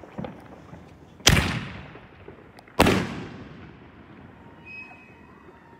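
Two aerial fireworks bursting overhead, two loud bangs about a second and a half apart, each followed by a long fading echo.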